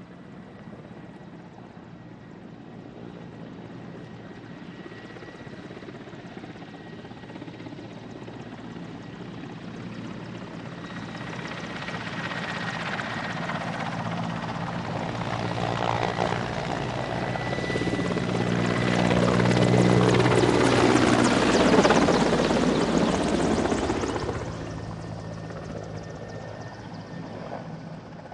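Mil Mi-8 twin-turbine transport helicopter flying past. It grows steadily louder as it approaches and is loudest about three-quarters of the way through, then the pitch drops and it fades quickly as it moves away. A thin, high, steady whine runs under the rotor noise.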